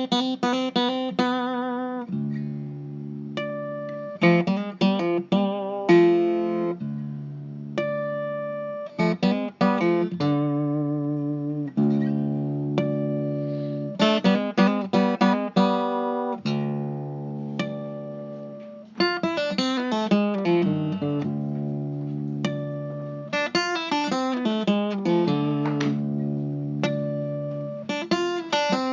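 Solo guitar music: quick runs of plucked notes alternating with held, ringing chords, with no drums or voice.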